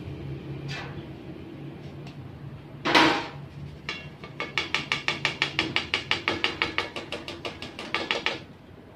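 Metal sieve being tapped by hand over a stainless steel bowl to sift powdered sugar: one louder knock about three seconds in, then a run of rapid, even taps, about six a second, that stops shortly before the end.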